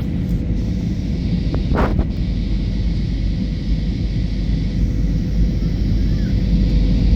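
Airbus A320 airliner's steady low rumble of engines and airflow, heard from inside the passenger cabin, with a faint steady hum and a brief hiss about two seconds in.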